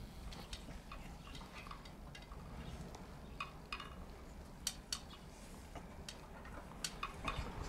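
Quiet scuffling of two Keeshond dogs play-wrestling on grass: scattered light clicks and taps, a few seconds apart, over a faint low background.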